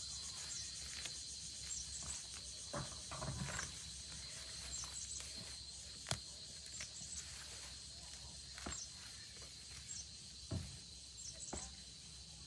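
Steady high insect drone with short repeated chirps, under scattered light knocks and rustles.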